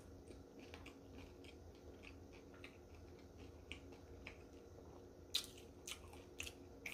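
Faint close-up mouth sounds of someone chewing a bite of crispy rice sushi topped with avocado: small wet clicks and smacks, with a few louder clicks near the end.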